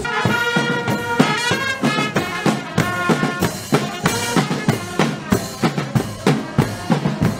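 Music with a steady drum beat of about three strikes a second under a pitched melody, cutting in suddenly after outdoor talk.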